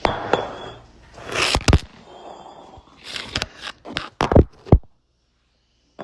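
Rustling and scraping close to the microphone with several sharp knocks, then about a second of dead silence near the end.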